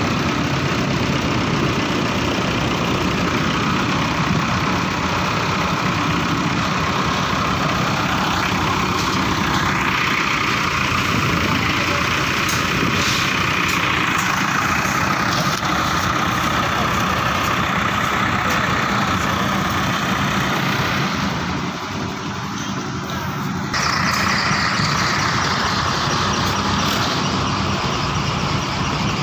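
An engine running steadily, with a short drop in level about three quarters of the way through.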